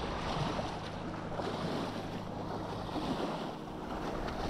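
Small wind-driven waves lapping and splashing against a rocky lake shore, with wind buffeting the microphone.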